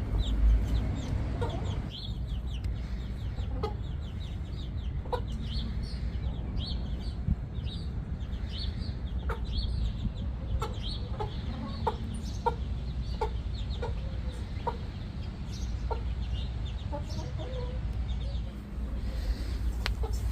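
Backyard chickens clucking, with many short high chirps throughout over a steady low rumble.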